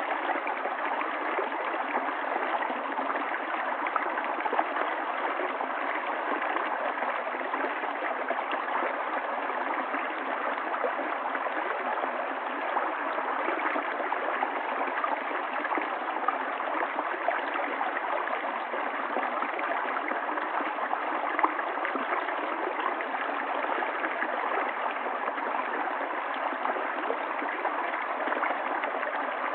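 Running water of a stream, a steady, even rush with no breaks or changes.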